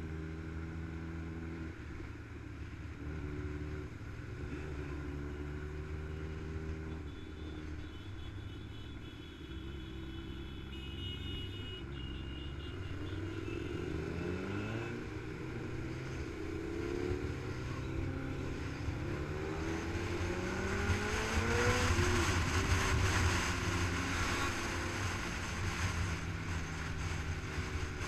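Motorcycle engine heard from a camera mounted on the bike, running at road speed among other motorcycles. Its pitch steps and glides upward in the second half as the bike accelerates through the gears. Wind noise on the microphone rises with the speed.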